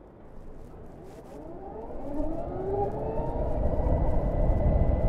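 Harley-Davidson LiveWire electric motorcycle accelerating away: its motor whine rises in pitch over the first three seconds or so, then holds steady, while wind and road rumble build as speed picks up.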